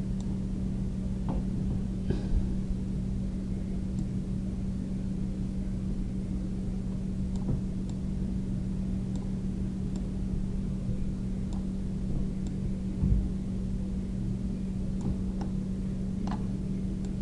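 Steady electrical hum in the recording, a constant low tone, with a few faint clicks scattered through it and a soft thump near the end.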